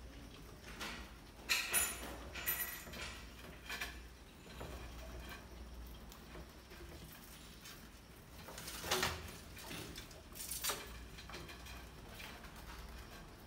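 Mice scurrying and scrabbling over a wooden ramp and plywood platform: irregular light taps, scratches and small knocks, with a few louder clattering bursts.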